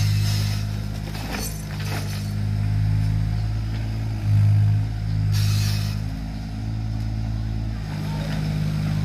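Kobelco mini excavator's diesel engine running steadily under hydraulic load, its pitch stepping up and down as the bucket digs and swings soil. A few knocks come early on, and a short loud hiss about five seconds in.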